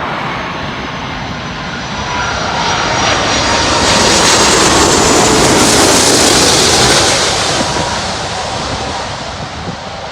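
Airliner passing low overhead on its landing approach: the engine noise swells to a peak about halfway through, with a high whine that falls in pitch as it goes by, then fades.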